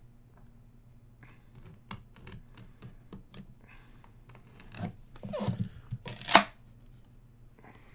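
Trading cards and their packaging being handled: scattered light clicks and rustles, with one short, louder tearing sound about six seconds in.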